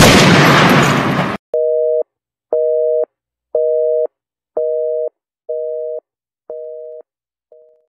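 Telephone busy signal: two-tone beeps, each about half a second long and once a second, growing quieter over the last few, with the last one cut short. It follows a loud rush of noise in the first second and a half.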